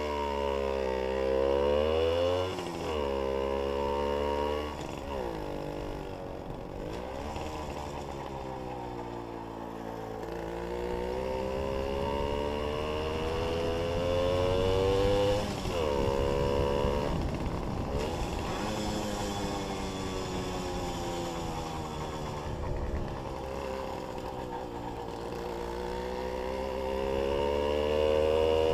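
Jawa 555 moped's 50 cc two-stroke single-cylinder engine under way. Its pitch climbs as it accelerates and drops sharply at each upshift, easing off and pulling again several times.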